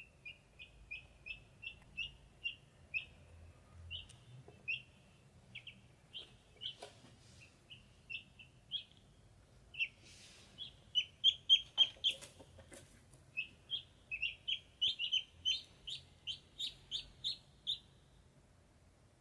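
Ducklings peeping: a steady run of short, high peeps, several a second, growing louder and quicker about halfway through. A brief rustle and a few soft knocks come about halfway through too.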